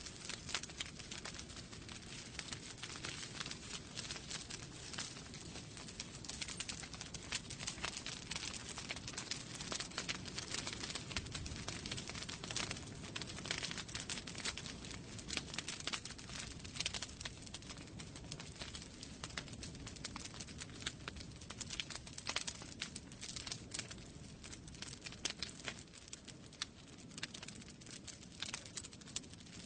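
Wood fire burning in a fireplace, crackling and popping in many irregular sharp snaps over a low, steady rumble of flames.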